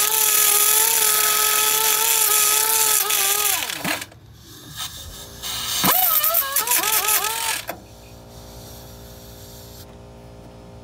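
Handheld belt file (small belt sander) running with a steady whine while grinding thin, rusted sheet steel around a hole. It winds down about four seconds in, then runs again with its pitch dipping in short passes under load. It stops near the end, leaving a faint steady hum.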